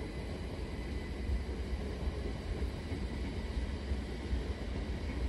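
Great Northern Class 387 electric train approaching slowly in the distance: a low, steady rumble with a faint steady whine.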